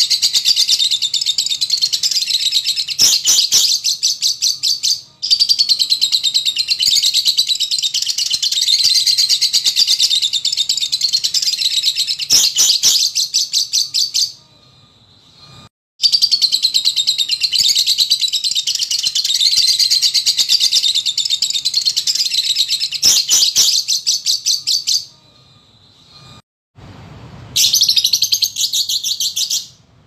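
Fischer's lovebird singing its long, rapid chattering trill, in unbroken runs of several seconds with short sudden breaks between them.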